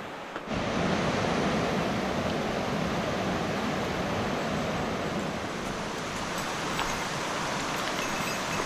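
Steady rush of a mountain river running close by, jumping louder about half a second in and then holding steady.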